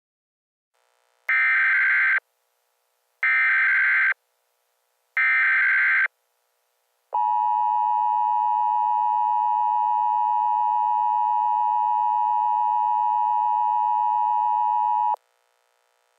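Emergency Alert System SAME header: three short data bursts about two seconds apart, then the two-tone EAS attention signal held steady for about eight seconds and cutting off abruptly. This sequence marks the start of an emergency alert broadcast.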